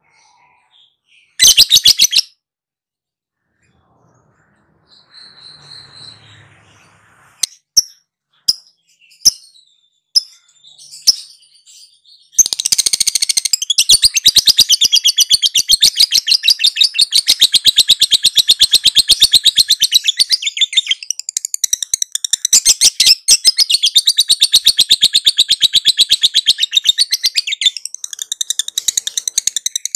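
Lovebird singing a long ngekek, the rapid chattering trill prized for its duration: after a short loud burst and a few scattered chirps, an unbroken run of very fast high-pitched chatter starts about twelve seconds in and keeps going.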